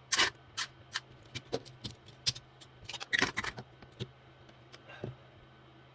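Irregular sharp clicks and taps, a dozen or so, thickest around three seconds in and thinning out near the end, from small tools and parts being handled during the repair, over a faint steady low hum.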